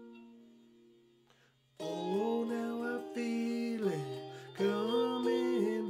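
Stratocaster-style electric guitar: a held chord rings out and fades, then a little under two seconds in a louder passage of sustained, changing chords starts, with one note sliding down in pitch just before a fresh strum near the end.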